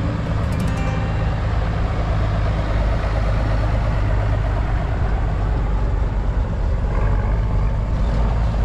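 Vintage farm tractor engines running steadily as tractors drive past one after another.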